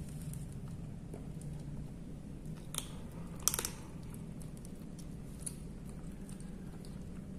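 Two kittens chewing and crunching dry kibble, with a few sharper crunches about halfway through, over a steady low hum.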